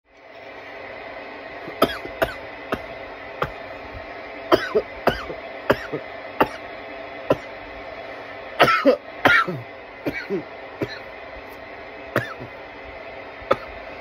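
A man coughing in a drawn-out fit of a dozen or more short coughs, brought on by bong smoke. The loudest coughs come in a cluster about two-thirds of the way through, over a steady background hum.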